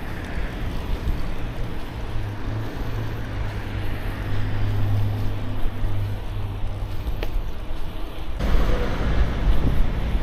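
Wind noise and rolling rumble on a bike-carried action camera while cycling along a paved path, with a low steady hum through most of it. About eight seconds in, the noise turns rougher and louder.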